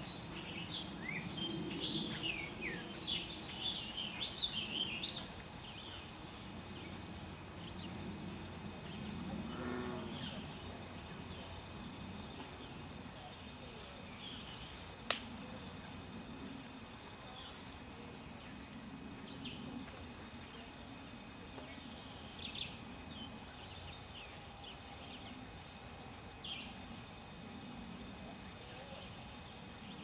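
Small birds chirping outdoors: many short, high chips and a few quick downward-sliding calls, busiest in the first few seconds and again near the end, over a low steady background rumble. A single sharp click sounds about halfway through.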